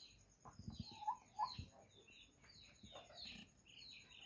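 Faint bird chirping: short high calls, each falling in pitch, two or three a second, with a few low thumps in the first two seconds.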